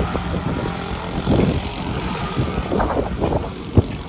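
Motor scooter passing along a street, its engine heard over uneven rumble.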